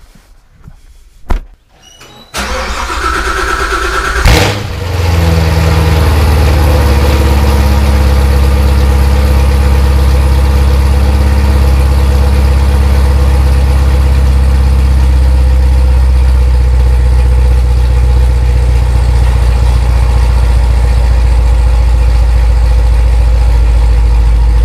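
2016 Corvette Z06's supercharged V8 being started: a click, about two seconds of starter cranking, then the engine catches with a loud flare. It then settles into a steady idle, heard from behind the car at the exhaust.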